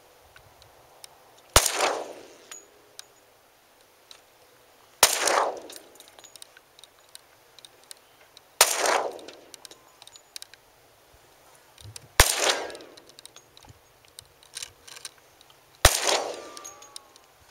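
Five 10mm Auto pistol shots from a Glock 20 SF, evenly spaced about three and a half seconds apart, each followed by a short echo.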